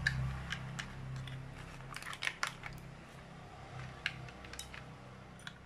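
AAA batteries being pressed into the plastic battery compartment of a handheld digital hanging scale: a series of small, scattered plastic clicks and taps, with a quick cluster of them a couple of seconds in.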